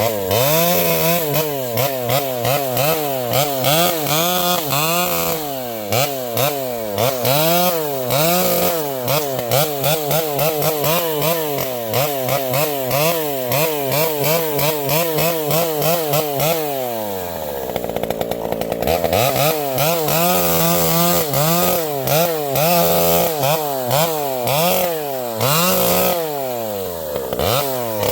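Vintage Pioneer two-stroke chainsaw running at high revs, its pitch rising and falling a couple of times a second: the blubbering of its governed carburettor. About 17 seconds in the engine note sinks down toward idle, then revs back up.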